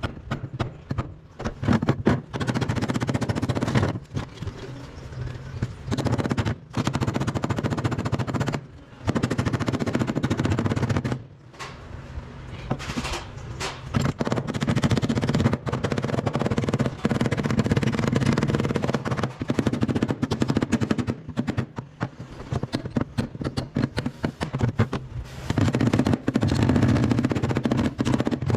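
A pneumatic air tool rattling against the car's sheet-metal floor pan and rear body panel in bursts of a few seconds each, with short pauses between them.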